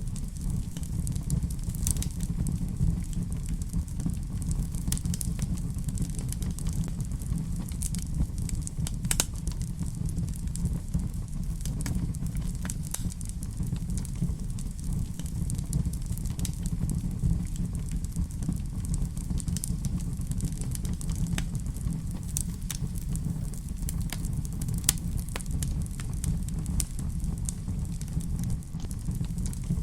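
Fire crackling in a fireplace: irregular sharp pops and snaps over a steady low rumble of the flames.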